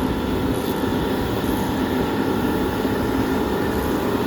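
Steady, unchanging machine noise with a faint hum running through it, from shop machinery such as a forced-air heater or an air compressor; no separate ratchet clicks stand out.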